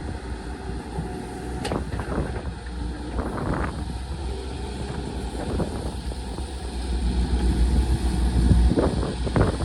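CAT excavator's diesel engine running steadily, with several sharp knocks along the way; the engine grows louder about seven seconds in.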